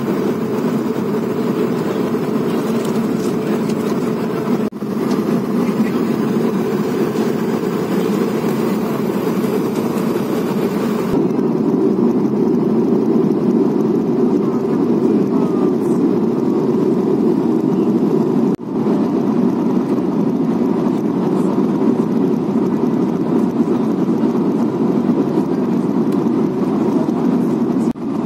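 Steady cabin roar of an Airbus A220-300 in flight, airflow and the hum of its Pratt & Whitney PW1500G geared turbofans heard from inside the cabin. The roar dips briefly twice, about a sixth and two thirds of the way through.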